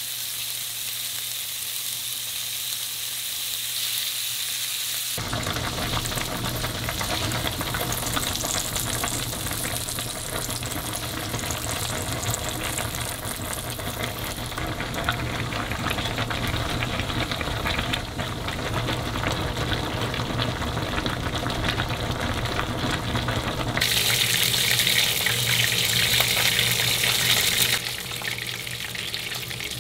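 Thin-sliced beef sizzling as it fries in a pan and is turned over. About five seconds in, a fuller, denser cooking noise takes over, consistent with the pot of mala tang, with a louder, sharper hiss for a few seconds near the end.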